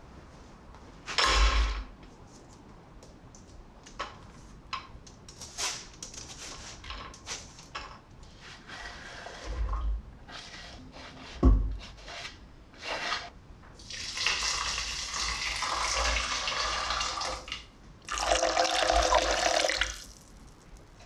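Cooking sounds at an empty stainless steel pot: a short pour from a bowl, light scraping and clicks as chopped onion is pushed off a wooden board into the pot, and a sharp knock about halfway through. Then water or broth is poured into the pot in two long pours, the second loudest, with the note of the filling pot.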